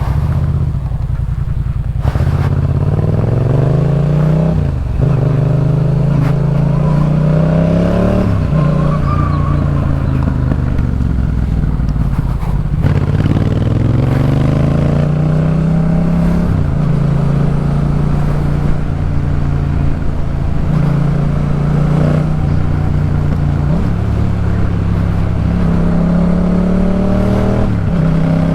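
2018 Yamaha MT-07's parallel-twin engine through a Jeskap K4 full exhaust, under way and accelerating. The note climbs through the gears with a sudden drop at each upshift, holds a steady pitch while cruising for a stretch mid-way, then climbs again. Sporty but not too loud.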